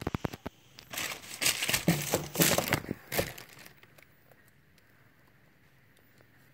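Packaging crinkling and rustling in quick handled bursts as a DVD box set is handled, after a few sharp clicks at the very start. It stops about three and a half seconds in.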